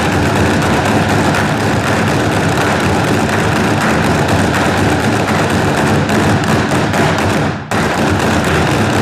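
A percussion group playing a fast, dense roll on many drums at once, loud and continuous, starting abruptly after a wood block cue. It breaks off for an instant about three-quarters of the way through, then resumes.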